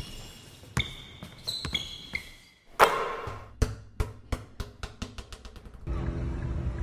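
Sound effects of a logo intro: a few sharp hits with a ringing tone, a noisy impact about three seconds in, then a run of taps that come quicker and quicker, like a ball bouncing to rest. Near the end it cuts to a steady hum inside a car.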